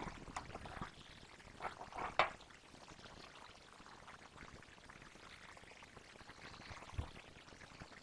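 Homemade slime being worked, giving a few short wet, sticky squelches in the first couple of seconds, then faint soft sounds, with one soft knock about seven seconds in.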